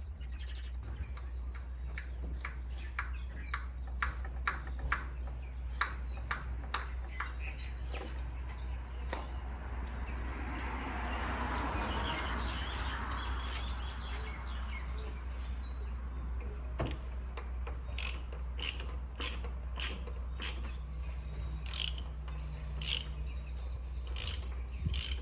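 Ratcheting hand tool clicking in a string of separate sharp clicks, in two spells with a pause in the middle, over a steady low hum.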